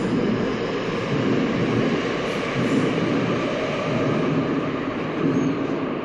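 Seoul subway Line 7 train pulling out of an underground station, a steady loud rumble of wheels and motors heard through the platform screen doors as the cars slide past.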